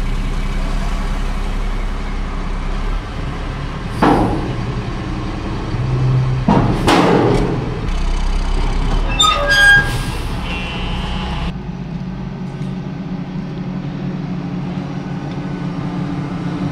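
Heavy diesel engines running: a dump truck's engine, with two short sharp hisses about 4 and 7 seconds in, then from a little before halfway a wheel loader's diesel engine running steadily.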